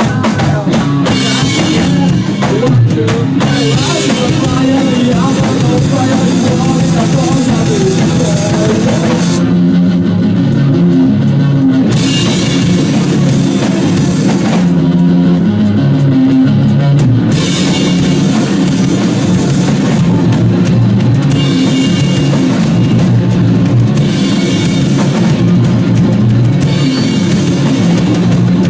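Rock band playing an instrumental stretch with drum kit, bass drum and electric guitar and no singing. The cymbals drop out twice, for a couple of seconds each, near the middle, while the drums and guitar go on.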